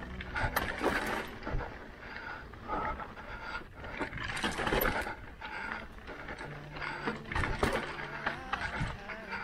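Mountain bike rolling fast down a rocky gravel trail: tyres crunching over loose stones, with irregular knocks and rattles as the bike hits rocks and bumps.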